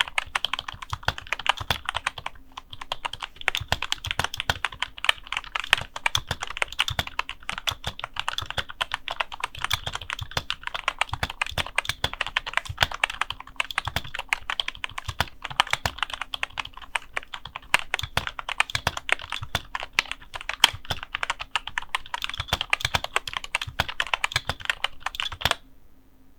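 Rexus K9E membrane keyboard being typed on quickly, a dense run of keystroke clicks, its switch housings freshly lubed with Krytox 205g0 for a smoother, nicer sound. The typing stops just before the end.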